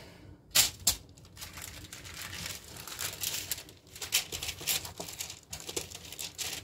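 Paper lining a sheet pan crinkling and rustling as sourdough focaccia dough is laid onto it and pressed out by hand, with two sharp taps within the first second.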